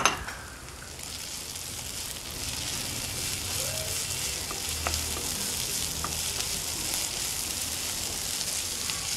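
Chopped onions with green chilli, coriander and curry leaves sizzling in hot oil in a pan while being stirred with a wooden spatula. The onions are softening as they sauté. The sizzle is a steady hiss that grows louder after the first couple of seconds, with a few light spatula scrapes.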